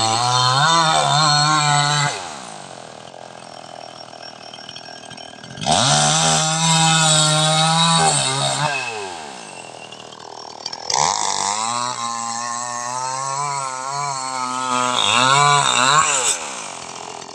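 Chainsaw cutting a fallen tree in three full-throttle stretches: near the start, from about six to eight and a half seconds in, and from about eleven to sixteen seconds in. The engine pitch dips and rises as the chain bites into the wood, and the saw drops back to a much quieter idle between cuts.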